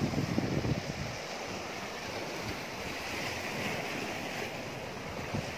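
Sea waves washing and breaking against rocks, a steady rush of surf, with wind on the microphone.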